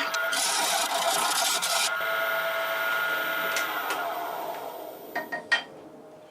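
A turning tool scrapes a spinning oak blank on a wood lathe, a harsh hiss that stops about two seconds in. The lathe then runs on by itself and winds down with a falling whine. A few sharp knocks come near the end.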